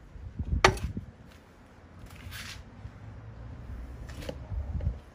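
A cut glass bottle being handled on a wet tile saw's metal table, with no motor running: one sharp knock about half a second in, a short scrape around two seconds, and a light click near the end, over a low rumble.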